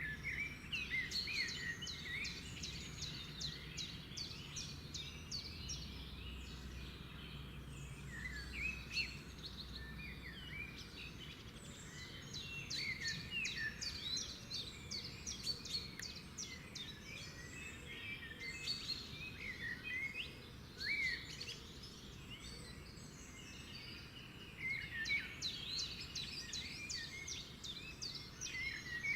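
A songbird singing in long bouts of rapid chirps, clicks and short whistles, three times with quieter gaps between, over a low steady background rumble.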